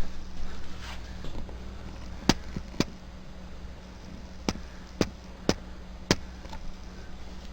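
Six sharp, short clicks at uneven intervals, over a steady low electrical hum.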